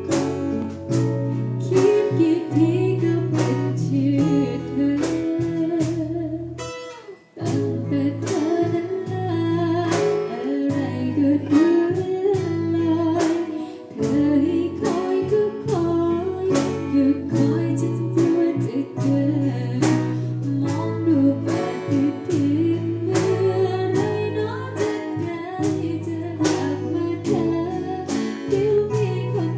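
Thai luk thung song: singing over guitar, bass and a steady drum beat, with the music dropping away briefly about seven seconds in.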